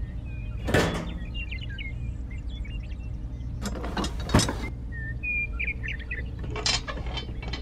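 Small birds chirping now and then over a steady low hum, with a few short bursts of noise about a second in, around four seconds in, and near the end.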